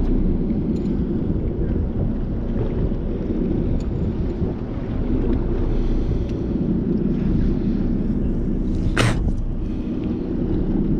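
Steady low rumble of the fishing boat's engine with wind on the microphone, and one brief sharp noise about nine seconds in.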